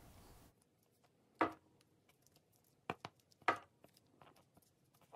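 A makeup sponge dabbed into the cavities of a clear plastic chocolate mold, giving a handful of short, soft taps, four of them distinct, with fainter ticks between.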